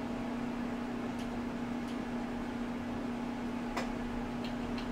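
A steady electrical hum, with a few faint ticks scattered through it.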